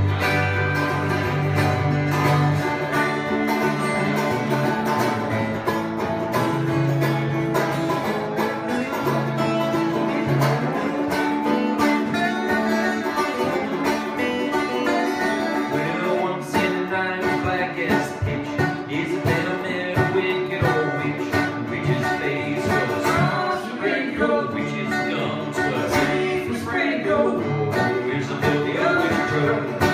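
Live bluegrass band playing: banjo picking over strummed acoustic guitars, with voices singing in the second half.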